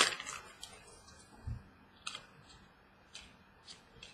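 Trading cards being handled: a few light, separate clicks and taps as cards are flipped and set down, with one soft low thump about a second and a half in.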